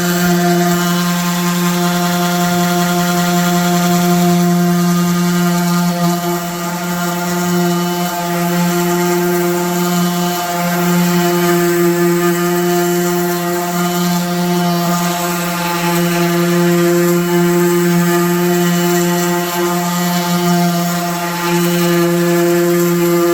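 Battery-powered sander running steadily as it sands wooden table boards: a continuous motor hum with a few brief dips in level, around 6, 8 and 21 seconds in.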